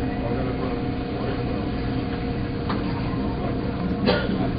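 Boeing 757 jet engines on landing approach: a steady rumble with a steady hum in it. A sharp knock comes about four seconds in.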